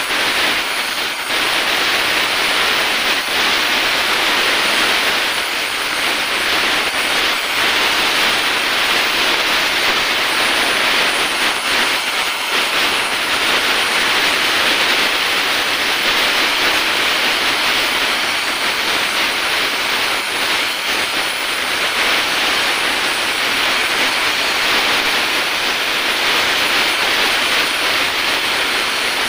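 Oxy-acetylene welding torch, fed by carbide-generated acetylene, burning with a loud, steady hiss while aluminium is welded onto a motorcycle crankcase.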